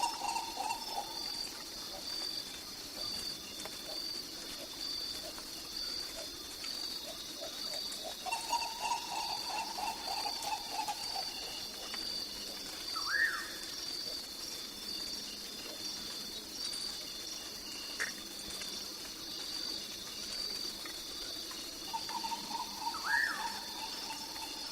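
Tropical jungle ambience: a steady high-pitched insect chorus pulsing evenly throughout. A lower trilling call comes and goes three times, lasting a few seconds each time, and a short rising bird call sounds twice.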